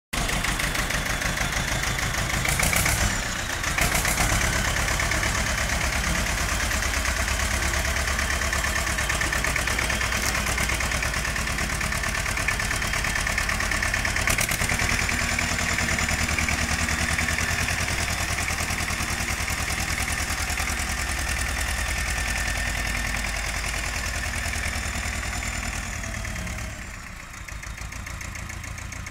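Ursus C-330 tractor's two-cylinder diesel engine running at low revs with an even beat while the tractor is driven; the sound drops somewhat quieter near the end.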